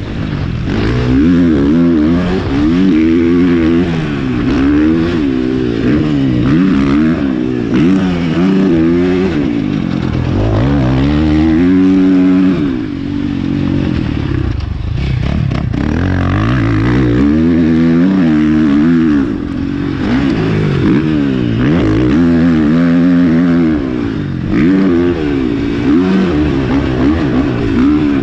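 Husqvarna FC450 motocross bike's single-cylinder four-stroke engine ridden hard, revving up and dropping back again and again through the gears and corners.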